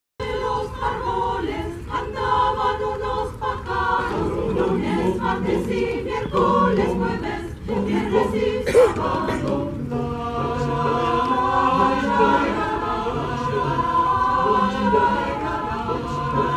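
A choir singing, several voice parts together, moving into longer held chords about ten seconds in.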